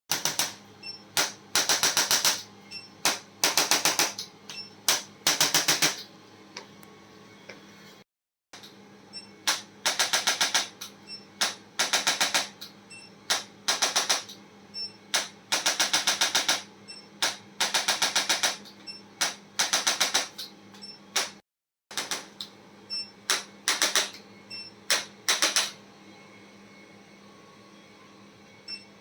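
Bursts of very rapid mechanical clicking, each from a quarter to about three-quarters of a second long, repeating about once a second over a faint steady hum. The sound drops out briefly twice, and the clicking stops for the last few seconds.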